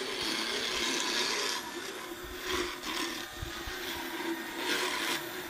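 Motorized equine dental float, driven by a cordless drill, running with a steady motor whine while its rotating head grinds down a horse's teeth. The grinding grows louder in three surges of about half a second as the head bears on the teeth.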